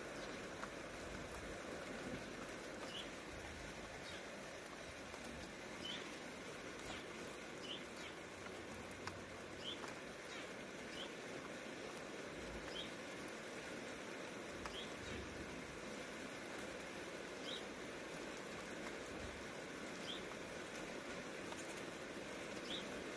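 Steady patter of light rain with a small bird chirping over it: short, high, rising notes about every two seconds.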